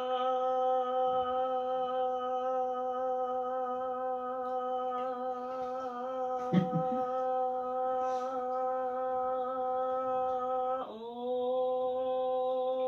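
A woman's voice holding one long, steady note at an unchanging pitch, sustained for as long as she can in a timed challenge. It breaks off briefly near the end and starts again at the same pitch.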